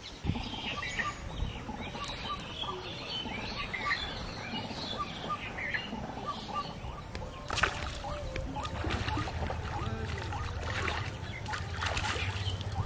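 Birds chirping and calling in the background, a busy scatter of short calls in the first half. Near the end there is a splash and rustle as a catfish is pulled out of the pond on a hook and line.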